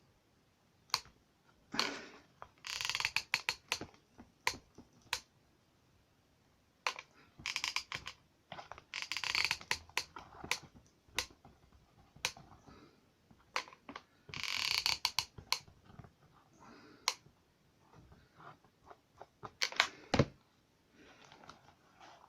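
Handling noises of card model parts and small tools on a work surface: scattered sharp clicks and taps, with a few short scraping rustles of card lasting about a second each.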